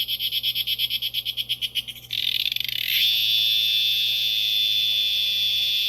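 Male cicada's calling song: a rapid high-pitched pulsing that turns into a continuous buzz about two seconds in and settles into a steady shrill drone a second later.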